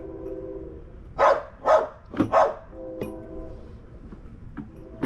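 A dog barking four times in quick succession, a little over a second in.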